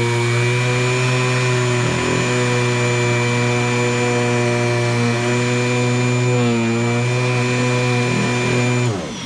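Maytag M1200 upright vacuum cleaner running steadily on sand-strewn carpet, its motor whine dipping briefly in pitch a few times. About nine seconds in it is switched off and winds down, the pitch falling away.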